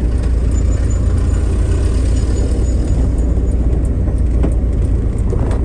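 A car driving, with a steady low rumble of engine and tyre noise and a couple of light knocks near the end.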